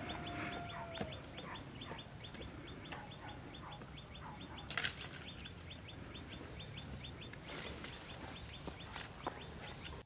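A rapid run of short, falling chirp calls, about four a second, over a steady low rush, with a few sharp cracks; the loudest crack comes about five seconds in.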